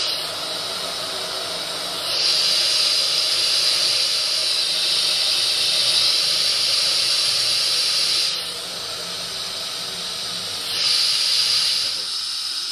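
Espresso machine venting steam with a steady hiss. The hiss swells louder for about six seconds starting two seconds in, eases off, then surges again briefly near the end.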